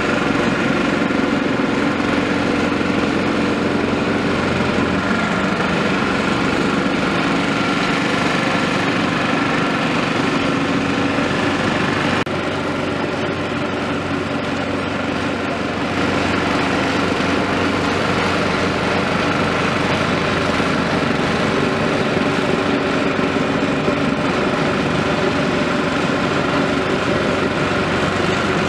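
Steady running of a CAT 329E excavator's diesel engine as it digs sand, mixed with the higher, buzzing small engine of a vibrating plate compactor working alongside.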